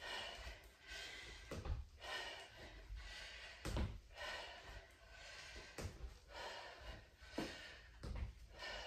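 Faint thuds of trainers landing on a parquet floor during a squat-and-kick exercise, one every second or two, with hard breathing between them.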